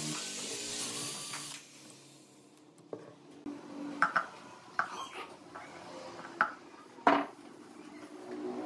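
Cordless drill running as it bores into a pine board, stopping about a second and a half in. After a pause come a handful of short sharp clicks and clinks as pliers and small metal hardware are handled and set down on a wooden clock body, the loudest about seven seconds in.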